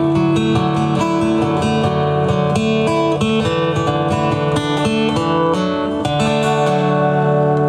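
Acoustic guitar playing a picked passage of quickly changing notes, settling into a longer-held chord near the end.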